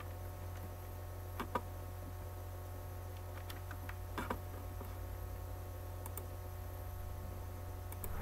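A few scattered computer keyboard keystrokes, typing numbers, over a steady low electrical hum; the loudest click comes about a second and a half in.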